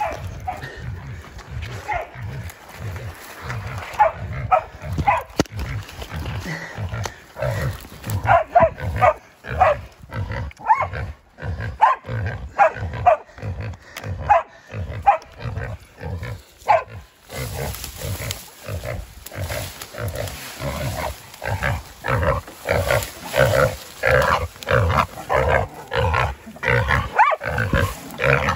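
Feral pig bailed by hunting dogs, squealing and grunting in short repeated calls that grow louder and closer together near the end. Footsteps push through the undergrowth in regular low thumps underneath.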